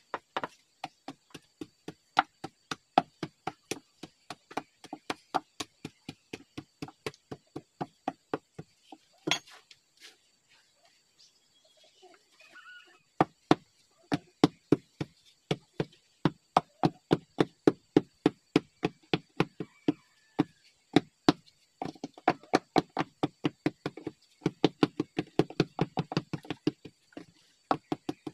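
Rapid dull thuds of soil being tamped down into the hole around the foot of a wooden post, about three blows a second, with a pause of a few seconds near the middle.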